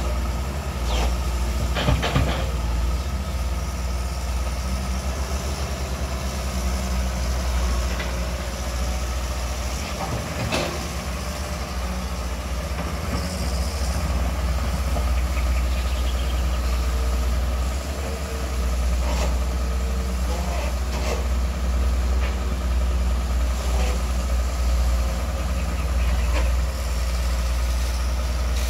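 Long-reach excavator's diesel engine running steadily, with a few sharp knocks from the working machine scattered through.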